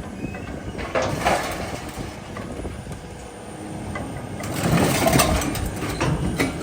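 A heavy machine's engine running while scrap is dragged off a trailer, with rough scraping and clattering swells about a second in and again in the second half.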